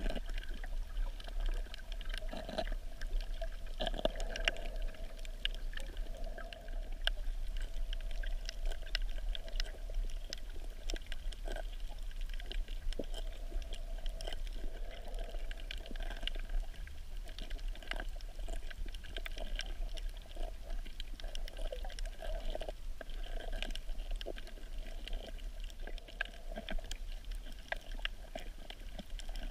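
Underwater ambience on a coral reef, heard through a camera held underwater: a steady low rumble with scattered sharp crackling clicks and a muffled sound that swells and fades every few seconds.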